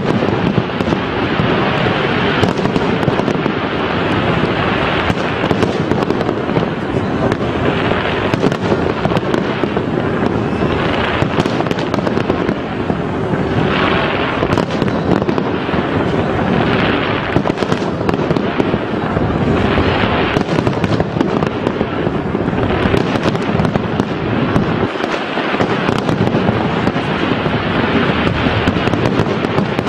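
Large aerial fireworks display: a dense, continuous barrage of overlapping shell bursts, many per second, with no lull.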